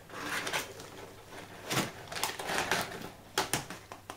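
Crumpled kraft packing paper rustling and crinkling as a plastic deli cup is pulled out of a cardboard box, in a few irregular spells, with a couple of sharp plastic clicks about three and a half seconds in.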